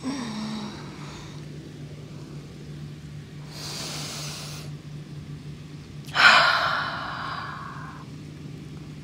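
A woman breathing deeply and audibly while holding a yoga pose. There are three breaths: a short one at the start, one about three and a half seconds in, and a louder one about six seconds in that fades over about two seconds. A faint steady low hum runs underneath.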